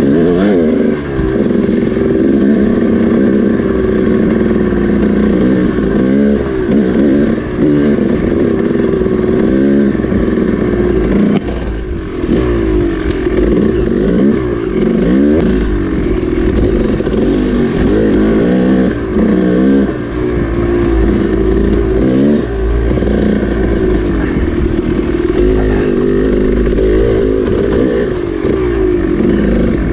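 KTM dirt bike engine being ridden hard, revving up and down over and over as the throttle opens and closes, with a short let-off about twelve seconds in.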